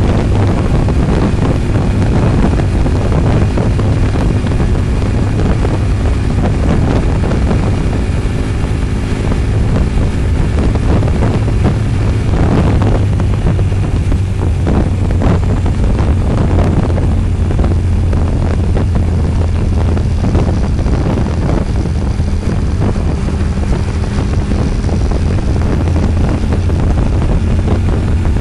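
Steady engine drone of a vehicle cruising along a road, with heavy wind rushing over the microphone.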